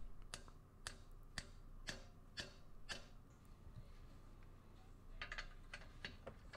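Faint sharp taps of a hammer driving a 14 mm socket onto a rusted exhaust flange nut to seat it, about two taps a second for the first few seconds, then a quicker run of taps a little past five seconds in.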